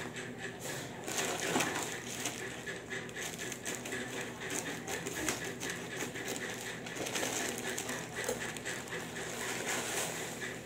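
Plastic courier pouch crinkling and rustling as it is cut open with scissors and its contents are pulled out, in many short irregular crackles.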